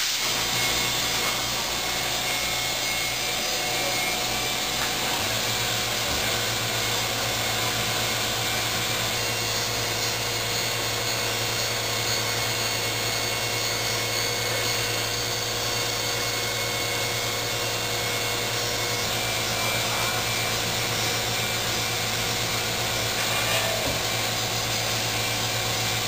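Tripet BS200 CNC internal grinding machine running, its high-speed spindle and grinding wheel giving a steady whir and hiss as the wheel grinds a part, with sparks thrown off. A low hum joins about five seconds in.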